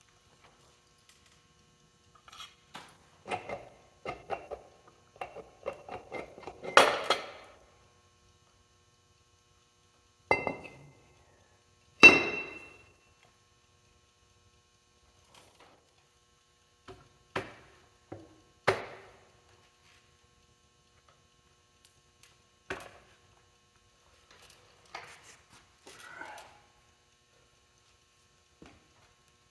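Intermittent clinks and knocks of metal tools and parts being handled while a forklift transaxle is taken apart. A quick run of light taps comes a few seconds in, and single harder strikes with a short metallic ring come around ten seconds in and, loudest, around twelve seconds.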